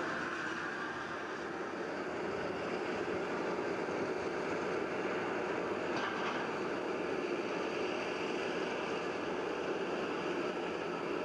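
SR.N4 cross-Channel hovercraft running steadily, the even rush of its gas turbines and propellers.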